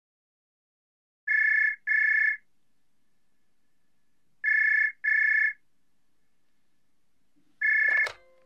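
Telephone ringing in pairs of short electronic rings, one pair about every three seconds. The third ring stops after a single tone as the call is answered, with a click near the end.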